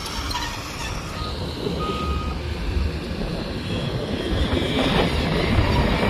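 Heavy earthmoving machinery, a dump truck and a tracked excavator, with their diesel engines running in a steady rumble that grows louder toward the end. Two short beeps come between about one and two and a half seconds in.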